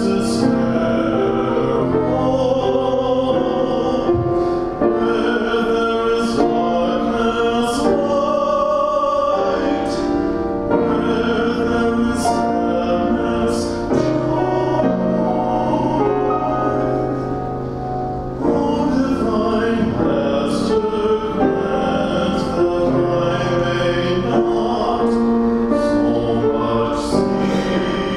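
A man sings a slow solo song with keyboard accompaniment, holding long notes.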